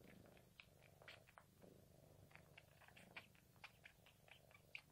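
Domestic cat purring faintly, a low steady rumble, while kneading; many light scratchy ticks come through, typical of claws catching on the cloth beneath its paws.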